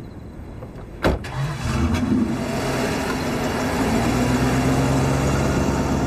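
A car door slams shut about a second in. A vintage sedan's engine then starts and runs steadily as the car pulls away.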